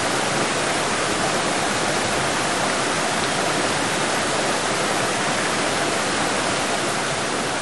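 Waterfall and rocky forest stream: water cascading over rocks in a steady, even rush.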